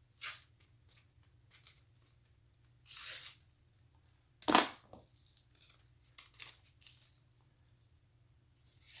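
Freshly sharpened Gerber Shortcut knife blade slicing through paper in a handful of short, separate strokes, the loudest about halfway through.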